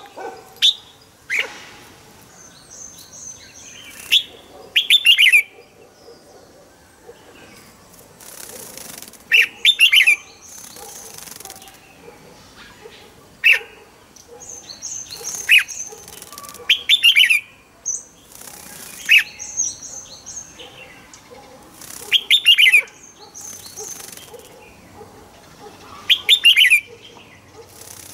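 Caged red-whiskered bulbul singing short, bright, loud phrases every few seconds, with higher thin trills between them. Brief flutters of its wings and hops about the cage come in between.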